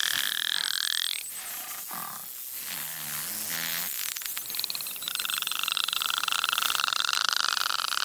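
Beluga whale calls: a high whistle that breaks off about a second in, short lower squawks, then a buzzy pulsed call held from about five seconds in.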